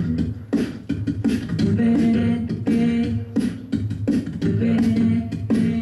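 A cappella vocal percussion: a beatboxer keeps a steady beat, about three strokes a second, under a sung bass line. From about two seconds in, the other voices join with held chords.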